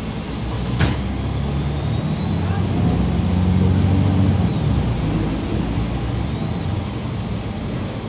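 MAZ 203 city bus heard from inside the cabin, its engine pulling up through a spell of acceleration to a peak about four seconds in, then easing off. A thin high whine climbs and falls with it. There is a sharp click just under a second in.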